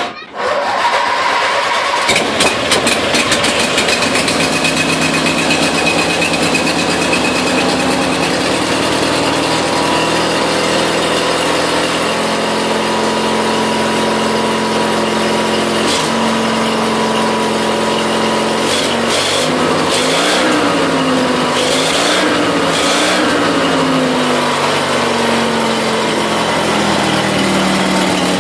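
Briggs & Stratton 20 hp opposed-twin engine starting up, firing unevenly for the first few seconds and then running steadily on its freshly rebuilt fuel pump. Its speed rises and falls a few times about twenty seconds in.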